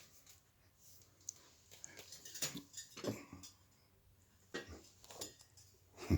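Faint scattered clicks and light knocks, a few short clusters with quiet gaps between.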